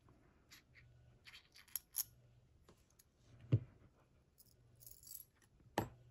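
Small metallic clicks, taps and a brief scrape as the plug is pulled out of an ASSA D12 lock cylinder, with a sharper click about three and a half seconds in and another near the end.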